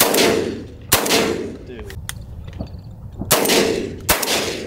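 Four shotgun blasts fired at doves, in two pairs about a second apart, each dying away in a short echo.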